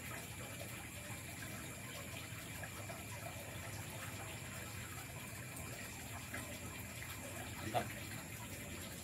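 Steady night-time forest background hiss with faint, steady high tones. One short clink about eight seconds in comes from a spoon against a handheld food container during eating.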